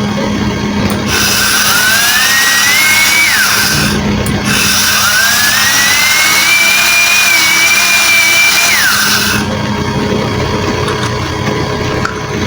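Small electric motor run twice, each time with a rushing noise and a whine that rises in pitch as it spins up, holds, then drops away as it is switched off; the first run lasts about two and a half seconds, the second about five.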